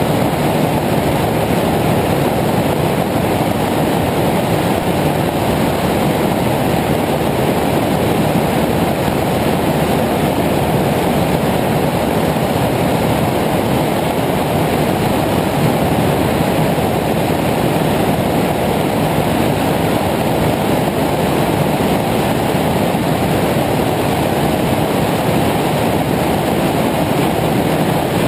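Light aircraft in flight: a steady, even rush of engine and wind noise that holds the same level throughout.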